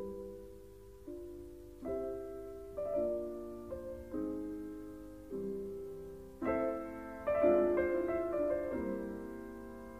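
Slow solo piano music: chords struck one after another, each left to ring and fade, growing fuller and louder about two-thirds of the way through.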